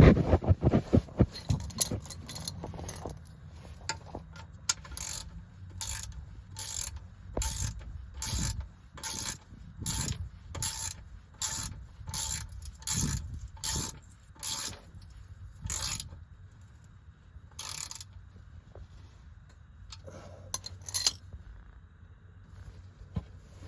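Ratchet wrench clicking in a steady run of strokes as a bolt is turned, with some clatter of tools and parts in the first few seconds.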